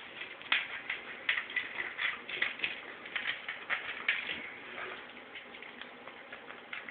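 Pug licking and smacking at peanut butter inside a jar on a tile floor: a quick, irregular run of small wet clicks and smacks that thins out after about four and a half seconds.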